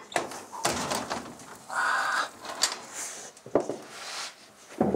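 Plates being set on a metal oven rack: clinks and knocks, a short squeak about two seconds in, and a sharp knock about three and a half seconds in.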